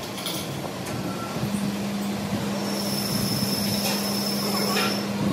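Workshop machinery running: a steady low hum sets in about a second and a half in, and a high-pitched whine joins it for a couple of seconds, with a few light clicks.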